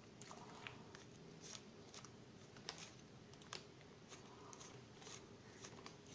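Faint, scattered clicks and light rustling as plastic toilet-cistern fittings are handled: the float arm set down and the plastic inlet valve with its rubber washer picked up and turned in the hands.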